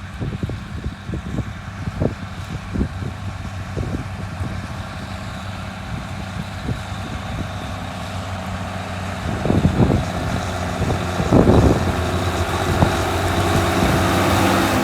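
Case IH Maxxum MX135 tractor's diesel engine running, with short knocks in the first few seconds. About eight seconds in it grows louder, with surges around ten and twelve seconds, and it runs louder to the end.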